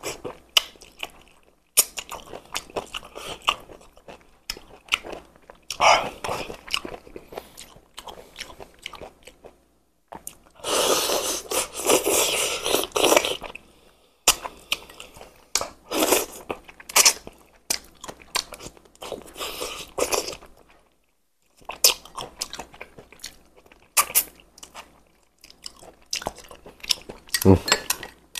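Close-miked chewing of braised chicken heads: wet mouth clicks and smacking with crunching, coming in bunches with short pauses, and a long sucking slurp about halfway through as meat is sucked off the small bones.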